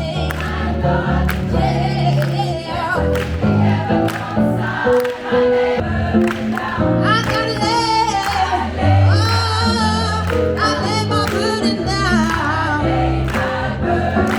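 Women's gospel choir singing over a band with a steady bass line and beat. From about seven seconds in, a lead voice sings wavering runs above the choir.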